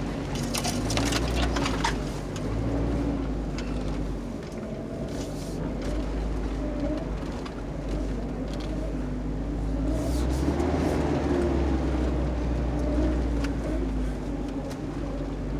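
A Kia 4x4 SUV's engine pulling slowly over rough sand and rock, heard from inside the cabin, its note rising and falling with the throttle over a low rumble of the drive. In the first couple of seconds dry brush scratches and clicks along the side of the body.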